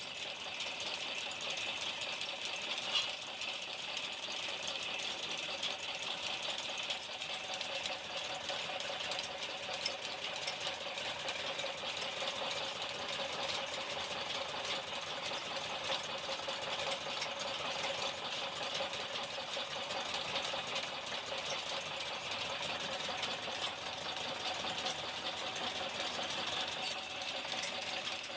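A motor-driven machine running steadily with a light rattle and a few small clicks.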